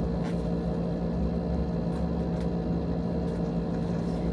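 Steady electric hum at a fixed pitch, with a few faint crinkles of the plastic wrapping on a parcel being handled.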